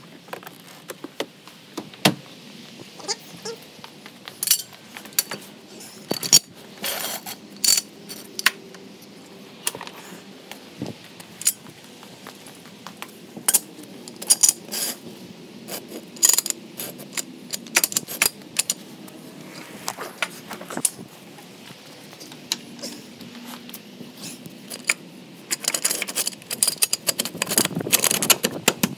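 Irregular sharp metallic clinks, clicks and rattles of tools and hardware being handled, with a busier clatter near the end.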